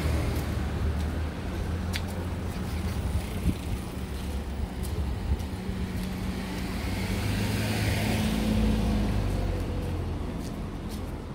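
Street traffic: a steady low engine hum of vehicles, with a passing car's engine and tyre noise swelling and fading about eight seconds in.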